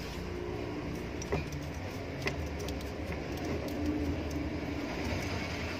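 Steady low rumble of road traffic in the background, with a few light clicks as copper coil wire is handled and pressed into the stator slots of a motor being rewound.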